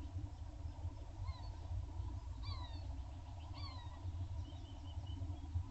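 A small bird calling: three short chirps sliding downward, about a second apart, then a quick run of high notes, over a steady low rumble.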